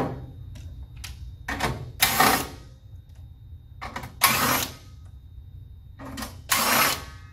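Cordless impact driver run in three short bursts, about a second each, on the screws of a sheet-metal splitter plate, after a sharp knock of the plate set down on the table.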